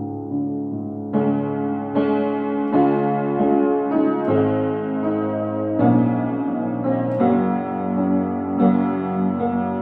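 Solo piano music: slow, sustained chords, a new chord struck roughly every second.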